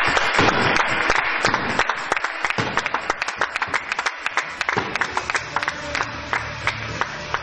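Spectators applauding a won point: dense clapping that thins out to a few scattered claps over the last few seconds.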